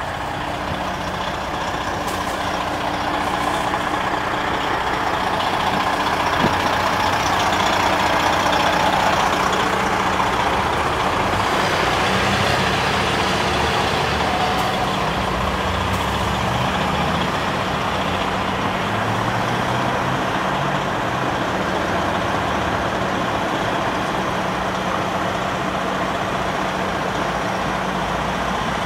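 Fire truck engine running steadily, growing louder over the first several seconds and then holding an even level.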